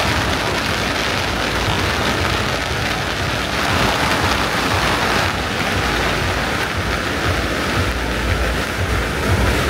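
A long string of firecrackers going off without a break, a dense rain-like crackle: a firecracker salute to a deity's palanquin.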